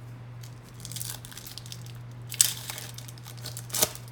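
Trading-card pack wrapper crinkling and being torn open, with two sharp rips about two and a half and about four seconds in, over a steady low hum.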